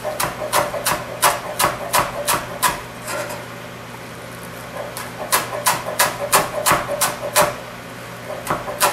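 Chef's knife chopping chives on a plastic cutting board: steady knocks of the blade striking the board, about three a second, stopping twice for a second or two.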